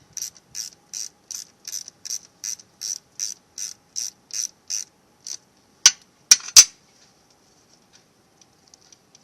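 A 10mm ratchet wrench clicking as a bolt is backed off, about three clicks a second for some five seconds, followed by three louder sharp knocks.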